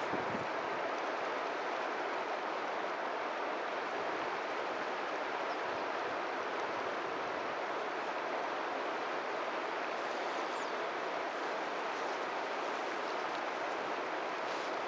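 Steady rushing outdoor noise, even and unbroken, with a couple of faint high chirps about ten seconds in.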